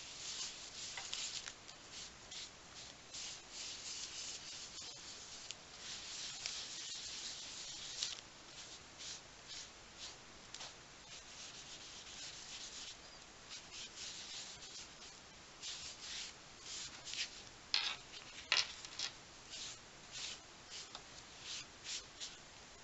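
Repeated short rubbing strokes across watercolour-wet journal paper, coming irregularly, with two louder, sharper strokes about three-quarters of the way through.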